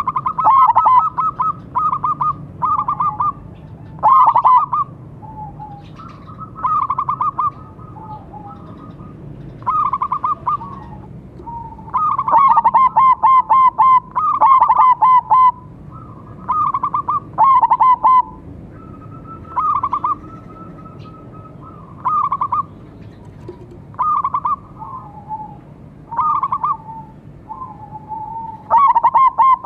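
Zebra doves (perkutut), a silver-coloured bird and a local one, singing their rolling cooing song: short phrases of rapid stuttering coos, one after another every second or two, with brief pauses.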